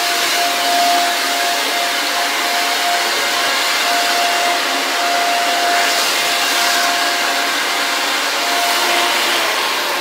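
Electric air blower running steadily: a rush of air with a steady whine, beginning to spin down right at the end.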